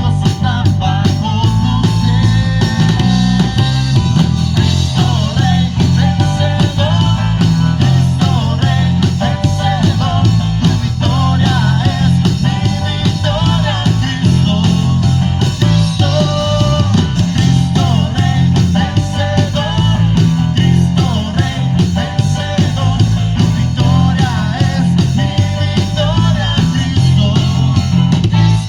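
Live band playing at a sound check: guitar, bass and drum kit in a steady rock beat, with a wavering melody line over them.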